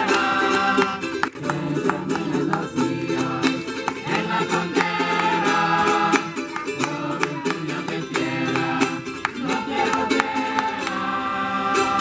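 A group of voices singing together in held phrases, accompanied by a small string instrument strummed quickly.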